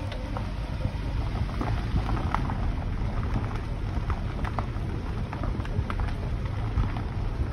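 Car tyres rolling over a dirt and gravel road: a steady low rumble with scattered crackles and clicks of small stones.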